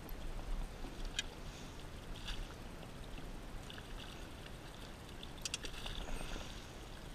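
Water splashing as a hooked bream thrashes and is scooped up in a landing net, the loudest splashes coming about five and a half to six seconds in. There is a sharp click about a second in, over a steady low rumble.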